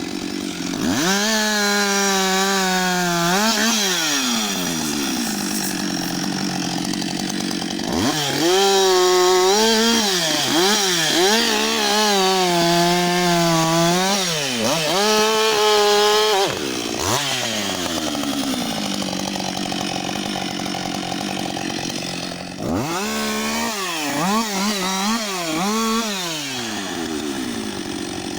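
Husqvarna 560 XP two-stroke chainsaw run up to full throttle three times, dropping back to idle in between. In the long middle burst the engine pitch repeatedly sags and recovers as the chain bites into wood.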